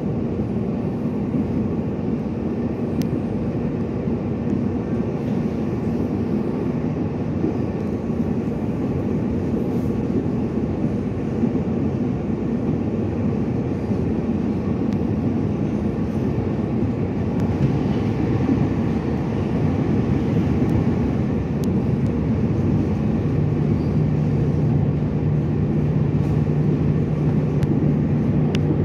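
Running noise heard inside a TRA EMU800 electric commuter train at speed: a steady low rumble of wheels on rail, with a steady hum that drops to a lower pitch about two-thirds of the way through as the noise grows a little louder.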